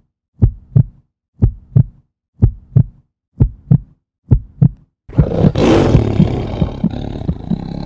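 Intro sound effects: a heartbeat-like double thump about once a second, five times, then about five seconds in a loud rushing swell that peaks within a second and slowly fades as the animated treasure chest opens.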